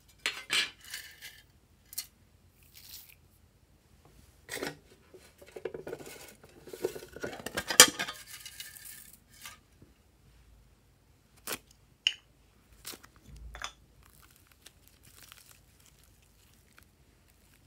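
A thin printed metal tin being handled and tipped, glitter confetti sliding out onto slime in glass dishes: scattered clicks, light rattles and crinkles, busiest and loudest around the middle with one sharp click, then a few separate clicks and quiet handling.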